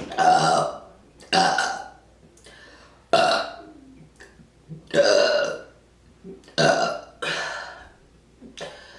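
A woman burping on command, about six separate loud burps in a row, each about half a second long, with short pauses between them.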